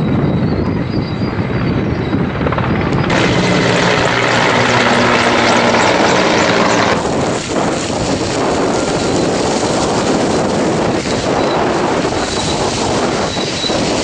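Helicopter droning overhead amid strong wind. About three seconds in the sound jumps louder, and from about seven seconds in it becomes a crackling rush of wind and burning vegetation.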